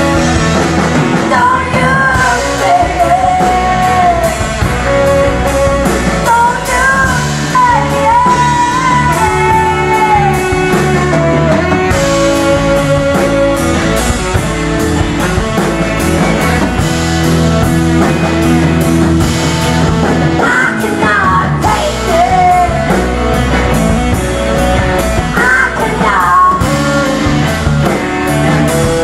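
Live band playing: a woman singing lead over electric guitar, bass guitar and a drum kit, with a saxophone.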